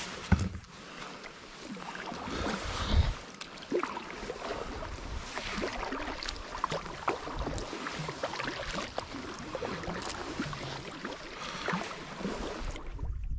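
Kayak paddle strokes: the blade dipping and pulling through river water with splashes and drips, over a steady wash of moving water. Two dull knocks come in the first three seconds, and the wash drops away near the end.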